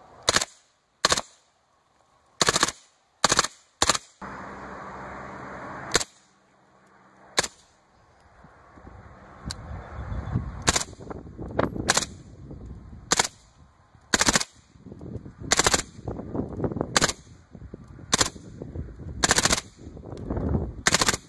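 An HK MP5SD 9x19mm submachine gun with its integral suppressor fires a string of short full-auto bursts, each a fraction of a second long, one every half second to second or so. For about two seconds a third of the way in there is a steady rush of noise between bursts.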